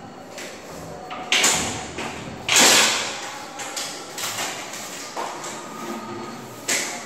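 Frameless glass door being moved on its hinges, giving three loud swishing noises about a second and a half in, near three seconds (the loudest) and near the end.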